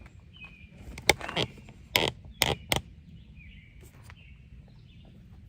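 About five sharp clicks and knocks, starting about a second in and spread over some two seconds, as tail light parts are handled and fitted. Faint bird chirps sound in the background.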